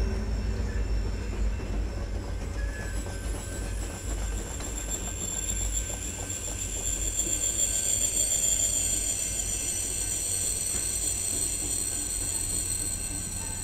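Train rolling past with a low rumble and a steady high-pitched squeal of wheel flanges against the rail, the squeal strongest about halfway through.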